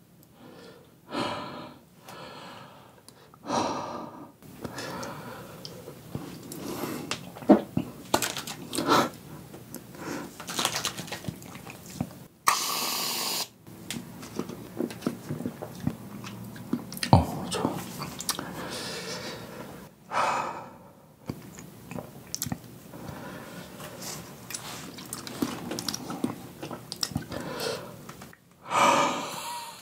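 Hard breathing, gasping exhalations and mouth sounds from the burning heat of very spicy fire noodles, with scattered chewing clicks. About twelve seconds in, an aerosol can hisses for a little over a second as it is sprayed into the mouth.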